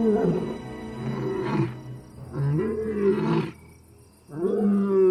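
Male desert lion roaring: a series of about four long moaning calls, each swelling and then falling away, the last and longest starting about four seconds in. It is a long-distance call to his companions, over a soft music score.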